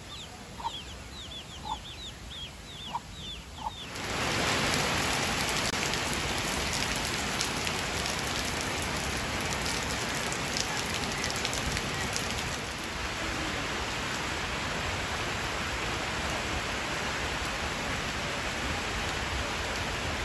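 Chickens peeping in a quick run of short, falling chirps. About four seconds in, a steady, loud hiss starts suddenly and drowns them out for the rest of the time.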